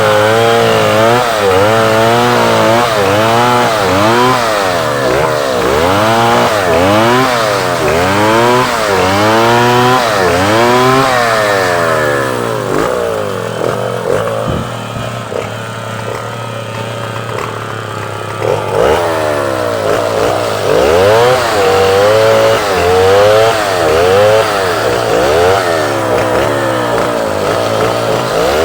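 Two-stroke chainsaw engine revving up and down about once a second while cutting wood. It settles to a quieter, steadier note for several seconds midway, then the repeated revving picks up again.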